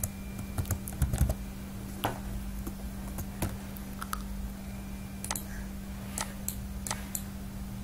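Computer keyboard and mouse clicking in scattered single clicks while code is edited and run, over a steady low hum.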